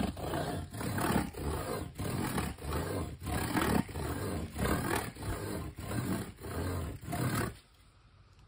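Worm fiddling: a wooden stake driven into the ground is rubbed with repeated rasping strokes, about two a second, giving a growling vibration that carries through the soil and drives earthworms to the surface. The strokes stop about a second before the end.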